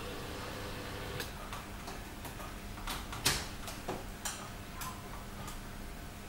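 Model railway turntable and locomotive making irregular sharp clicks and light knocks, the loudest about three seconds in, over a faint steady electrical hum. A higher hum stops about a second in.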